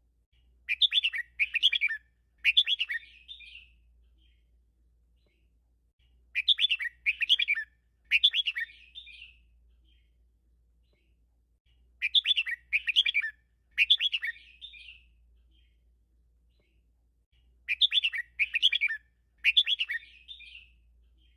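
Red-whiskered bulbul singing in the triple-repeat ('เบิ้ล 3') style prized by bulbul keepers. Each song is three quick chirping phrases, two close together and a third trailing off, and the song comes four times, about every six seconds.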